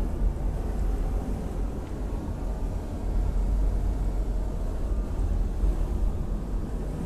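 Blizzard wind blowing through gaps at the side of a door: a steady, low, gusting noise that swells and eases.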